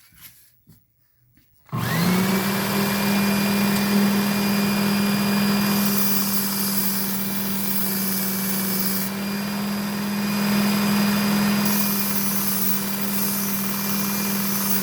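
Work Sharp Ken Onion belt knife sharpener switched on about two seconds in, its small motor coming up to speed and running steadily with a high whine. Twice the hiss grows for a few seconds as a knife edge is drawn across the moving abrasive belt.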